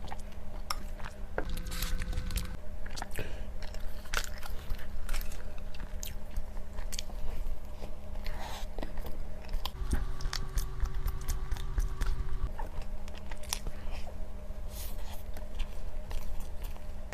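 A person biting and chewing crunchy food close to the microphone, with many irregular sharp crunches.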